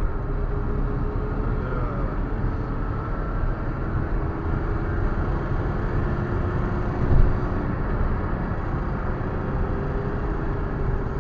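BMW E34 on the move at speed: a steady mix of engine and road noise, with the engine note wavering slightly, and a single bump about seven seconds in.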